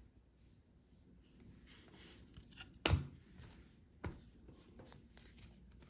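Faint rustling and sliding of trading cards being handled, with a sharp tap about three seconds in and a lighter one about a second later.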